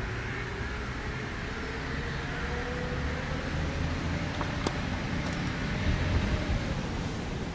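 A tennis racket strikes the ball on a serve: a single sharp pop about halfway through. Under it runs a steady low rumble with a faint hum slowly rising in pitch.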